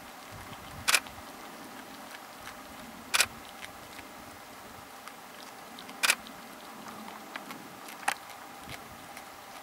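Four single camera shutter clicks at uneven intervals, about two to three seconds apart, over a faint steady background hum.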